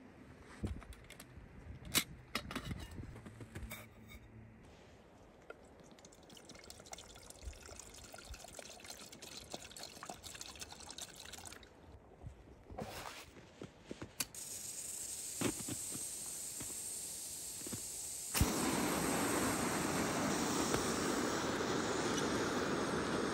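Backpacking canister stove being lit: scattered clicks of gear handling, then gas begins hissing from the burner about two-thirds of the way in. A few seconds later there is one sharp strike, and the burner catches and runs with a steady, much louder rushing noise.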